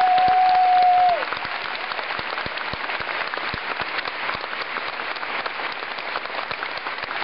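Crowd applauding, a dense patter of many hands clapping. A single held high tone rides over the clapping for about the first second, then stops.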